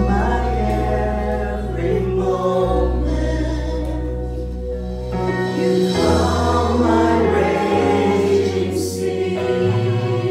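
Live worship music: a band playing a song with long held bass notes that change every two to three seconds, while a congregation sings along.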